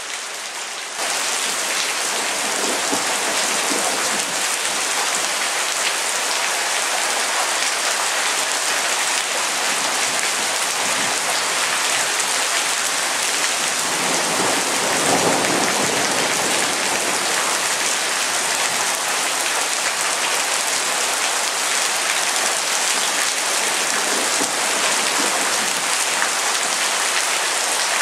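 Steady rain falling on wet paving, rails and trees, coming in louder about a second in. A low rumble swells briefly about halfway through.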